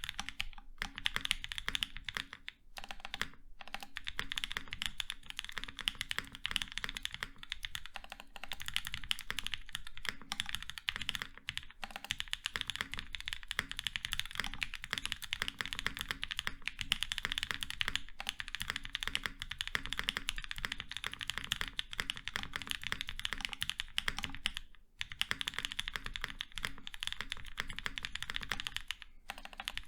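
Fast continuous typing on a leaf-spring-mounted Nascent 65% custom mechanical keyboard with an FR4 plate, Gazzew Boba LT 68 g linear switches, TX stabilizers and GMK keycaps, with a few brief pauses between bursts of keystrokes.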